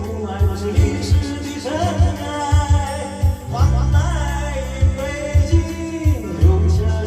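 A man singing a rock song over a backing track with a steady kick-drum beat.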